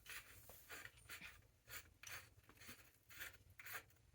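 Faint, uneven scraping strokes, about three a second, from metal bicycle parts being rubbed and turned by hand.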